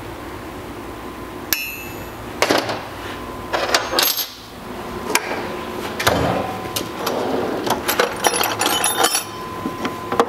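Metal clicks and clinks as a circlip is fitted with circlip pliers above the distributor drive gear on a Porsche 911E crankshaft nose. About a second and a half in there is one sharp snap with a short metallic ring as the clip springs into place. Scattered clinks of steel tools and parts follow, over a steady shop hum.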